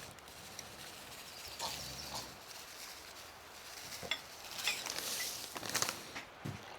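Rustling with scattered light clicks and knocks from handling things by hand, busiest from about four and a half to six seconds in.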